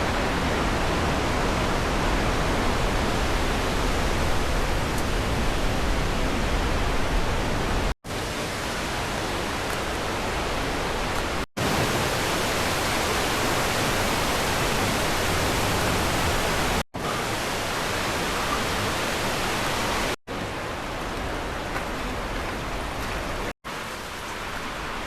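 Steady, dense rushing noise with a fluttering low end, broken five times by sudden split-second dropouts where separate clips are joined.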